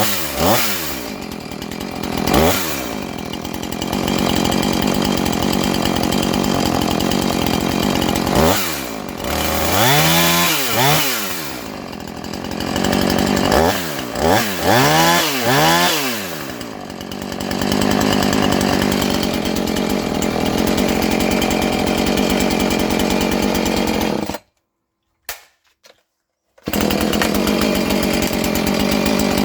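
Husqvarna 450 II two-stroke chainsaw engine running, revved up and back down several times between stretches of steady running. About 24 seconds in the sound breaks off into near silence for about two seconds, then the saw is heard running again.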